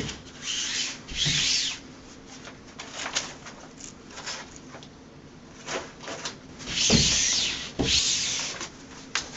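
Hands rubbing and smoothing a peel-and-stick wallpaper mural flat against a wall, pressing the air bubbles out. Irregular swishing strokes with a few short ticks, the strongest about a second in and again around seven seconds in.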